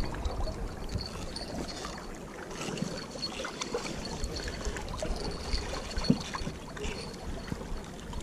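Outdoor ambience at the water's edge: a steady wash of water with low wind rumble on the microphone, a few soft knocks, and a faint high-pitched tone that comes and goes.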